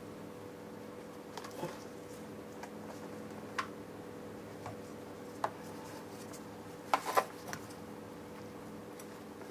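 Scattered light clicks and taps as a plastic moped body part is handled and pushed into place, the loudest a quick double click about seven seconds in, over a steady low hum.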